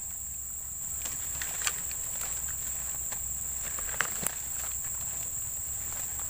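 Rustling of grass and leaves as someone shifts and leans through dense undergrowth, with a few sharp ticks near the middle, over a steady high-pitched insect drone.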